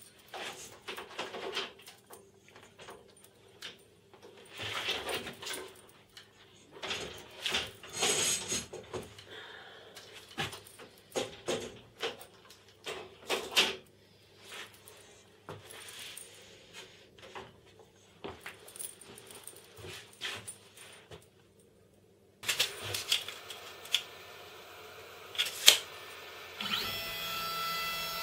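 Irregular clicks, knocks and rattles of the aluminium frame and plastic drag chain of a DIY CNC machine being handled and adjusted. Near the end the stepper motors start a steady whine as an axis moves.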